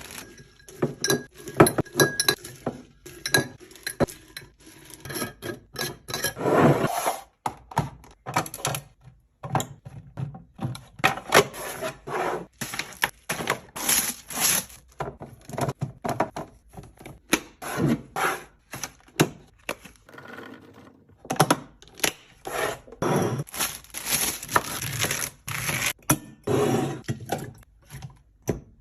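Restocking sounds: a rapid run of clinks, knocks and scrapes as drinks, jars and containers are set onto fridge shelves and handled, with a few brief pauses.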